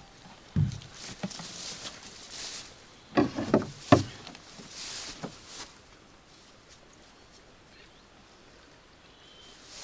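Knocks and thuds in a homemade HDPE plastic boat's hull as a man moves about in it and steps out onto the bank, with rustling of clothing, grass and rope. The knocks come in a quick cluster about three to four seconds in, the last one the loudest, then it goes quiet.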